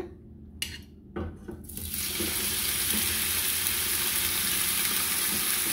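Pork rib pieces in a soy-sauce marinade dropped into hot oil in a frying pan, starting to sizzle about two seconds in and then sizzling steadily.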